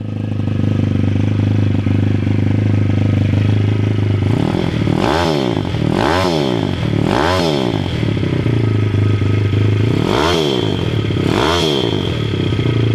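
A Dream Pitbikes Atom 160 pit bike's YX160 single-cylinder four-stroke engine idling, then revved in five quick throttle blips. Three come about a second apart roughly five seconds in and two more near the end, each rising and falling back to idle.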